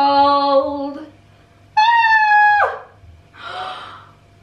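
A woman's high-pitched squeal, held briefly and sliding down at the end, followed by a sharp breathy gasp: her reaction to a cold sheet face mask pressed onto her skin. It follows the drawn-out word "cold".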